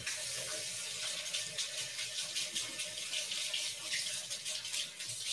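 Kitchen sink tap turned on suddenly and running steadily, water splashing into the sink as a dirty fork is rinsed.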